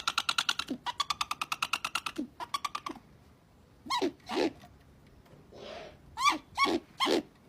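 Great grey owl calls: a fast, rattling series of pitched notes, about a dozen a second, for about three seconds, then short calls that drop in pitch, two of them about four seconds in and three more near the end.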